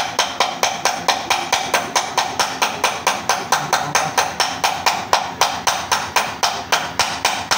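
Rapid, evenly spaced sharp knocks, about four to five a second, each with a short ringing tail, starting and stopping abruptly.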